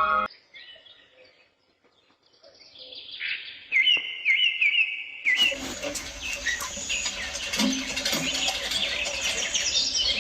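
Birds chirping: a few scattered calls after a moment of near silence, then a quick repeated call, and from about halfway through denser overlapping chirps over a steady background hiss.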